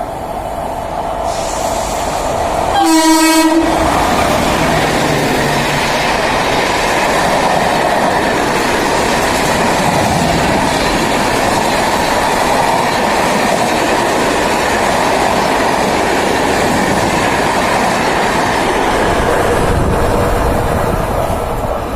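WAP-5 electric locomotive sounding one short horn blast about three seconds in. After that the Suvidha Express coaches pass close by, with a loud, steady rush of wheels on rail.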